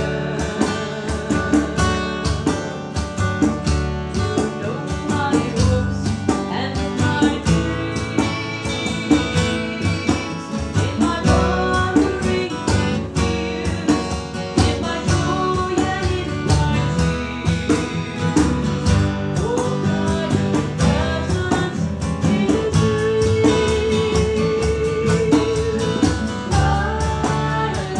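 Acoustic string band playing a song: strummed acoustic guitar and picked mandolin, with a sung melody over them.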